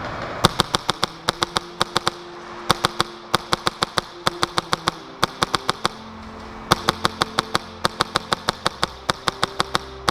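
HPA airsoft rifle (SCAR with a Heretic Inferno Gen II engine) firing, about a dozen quick strings of four to six sharp shots at roughly seven a second, with short pauses between strings.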